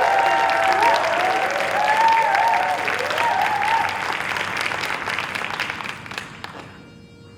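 Audience applauding, with whoops and shouts over the clapping; the applause dies away about six seconds in.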